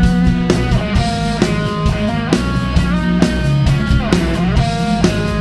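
Instrumental rock music: electric guitar playing sustained and bending notes over a steady drum beat.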